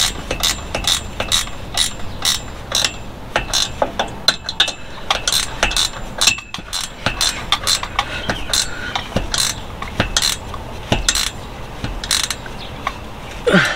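Hand ratchet wrench clicking repeatedly in irregular runs as a bolt is tightened by hand, the pawl ratcheting on each back-swing of the handle.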